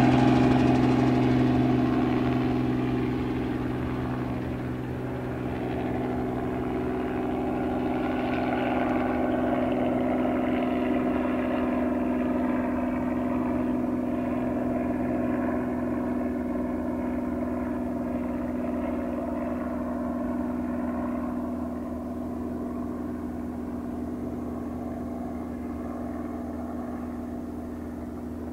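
Robinson R44 helicopter flying away after takeoff: its piston engine and two-blade rotor give a steady humming drone that fades gradually as it climbs into the distance, the higher sounds dying away first.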